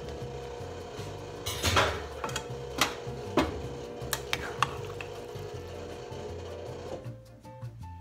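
Background music, with a serving spoon clinking against a metal pot as spaghetti in meat sauce is tossed; a handful of sharp clinks, most within the first five seconds.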